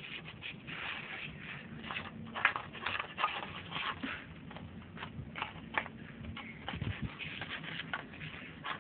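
A West Highland white terrier eating, with irregular chewing and mouth clicks a few times a second. The loudest come about two and a half and three seconds in.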